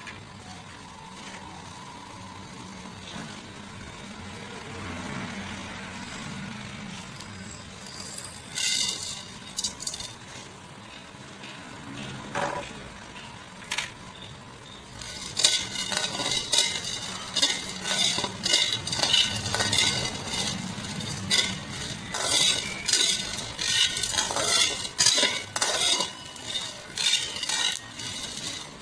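A metal spatula scraping and clinking against a metal wok as it stirs chopped ginger and garlic, in quick repeated strokes from about halfway through. Earlier there are only a few separate clinks.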